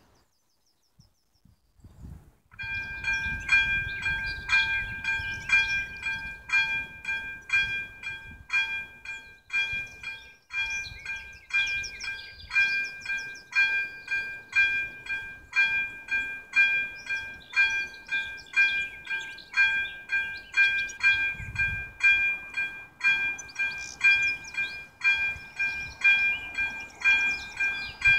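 Level-crossing warning bell starting about two and a half seconds in and then ringing steadily, a bright metallic ding repeated a little more than once a second: the crossing has been activated for an approaching train.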